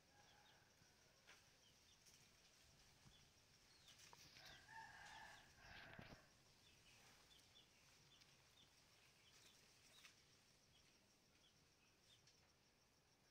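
A rooster crowing faintly about four and a half seconds in, one call lasting about a second and a half, with scattered faint high chirps around it.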